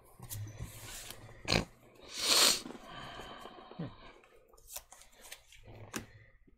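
Small clicks and taps of playing cards being handled and set down on a playmat, with one louder short hiss about two seconds in.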